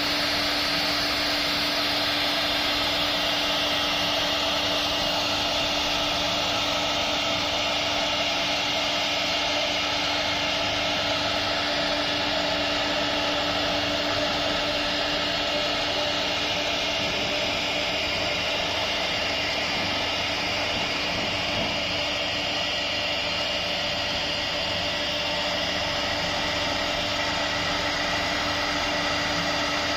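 CNC router spindle running with a steady whine while its fine tapered bit carves wood, over the even hiss of the cut.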